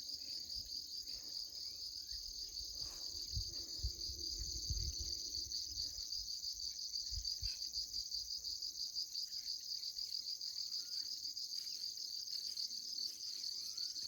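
A steady chorus of insects trills on and on with a fast, even pulse. A few dull low thumps sound a few seconds in.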